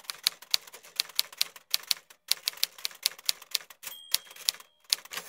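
Typing: a fast, uneven run of sharp key clicks, about three to five a second, pausing briefly near the two-second mark and stopping at the end.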